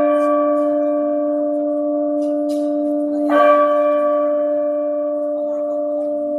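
Electronic church bell tolling slowly: the ringing of one stroke carries on at the start, and a new stroke rings out about three seconds in, its deep hum tone sounding steadily under brighter overtones.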